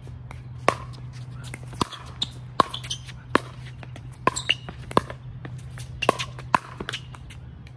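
Pickleball rally: a string of sharp, hollow pocks as paddles strike the plastic ball and it bounces on the court, about ten hits coming at uneven spacing of roughly half a second to a second.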